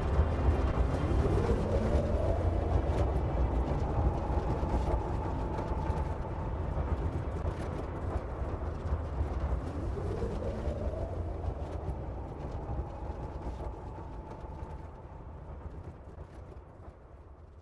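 A deep steady rumble under a wailing tone that winds up in pitch and holds, twice. Everything fades out towards the end.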